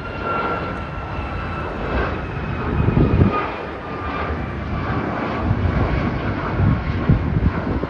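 Jet engines of a departing Alaska Airlines airliner at takeoff thrust as it climbs out: a steady roar with a faint whine slowly falling in pitch, the roar swelling about three seconds in and again near the end.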